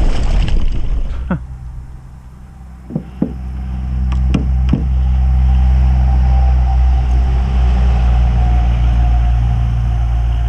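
Engine running steadily with a low hum that swells up about a third of the way in and then holds at a constant level, after a brief rush of wind and water noise at the start.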